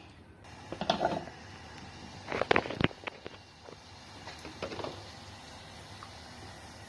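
Kitchen handling noises from a nonstick saucepan being picked up and set on the stove: a scrape, then a quick cluster of metal knocks, and a smaller clatter, over a faint steady hiss.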